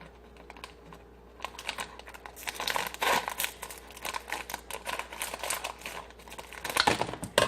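Crinkly packaging being handled and cut open with scissors, an irregular run of crackling and rustling that picks up after the first second or so.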